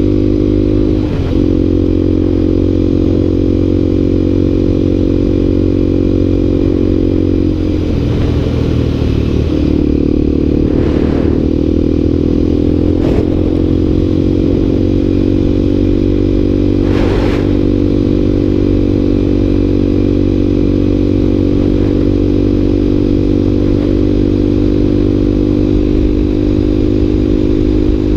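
Dirt bike engine running steadily under way on a gravel road, heard from on board the bike. Its pitch dips briefly about a second in and again around eight seconds in, and a few sharp knocks come through near the middle.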